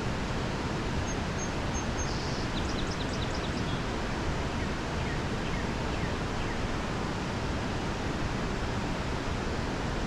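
Steady rush of creek water pouring over a dam. A bird chirps in a quick series of short high notes about one to four seconds in, then gives a few fainter falling calls.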